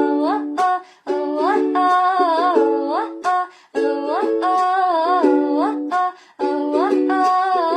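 An Arabic pop song: a gliding sung melody over strummed ukulele chords, in short phrases with brief breaks about one, three and a half, and six seconds in.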